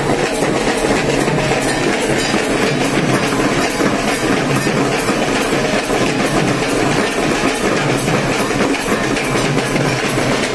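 Drums and cymbals of a street procession played loudly in a steady, driving beat.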